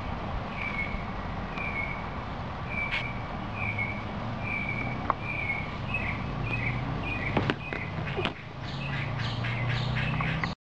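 A bird calling over and over, a short chirp about every three quarters of a second that comes faster after about six seconds, over a steady low hum, with a couple of sharp clicks near the end.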